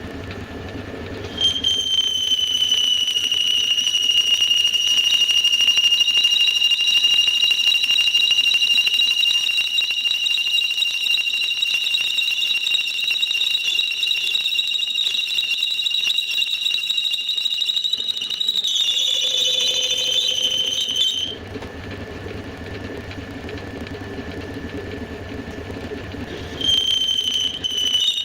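Homemade belt sander running with a low motor hum, joined about a second and a half in by a loud, high-pitched squealing whine. The whine sags slightly in pitch, stops around two-thirds of the way through, leaving the hum, and comes back near the end.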